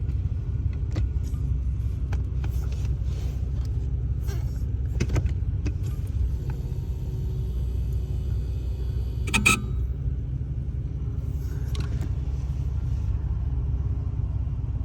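Lexus GX 470's V8 engine idling steadily, with a few faint clicks and one short, louder sound about nine and a half seconds in.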